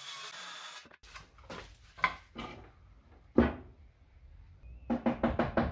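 A circular saw cutting through a thick wooden board for about the first second, then cut off abruptly. After that come several separate wooden knocks and thunks as pieces of a wooden seat box are handled on the workbench, and a quick run of light knocks near the end.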